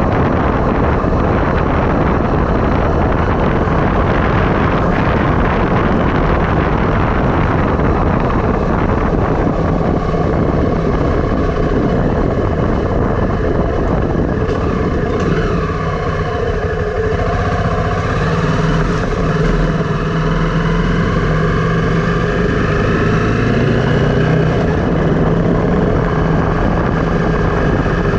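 Wind and road noise rushing past the microphone on a downhill ride. About ten seconds in, a steady engine hum joins it, its pitch bending slightly in the middle.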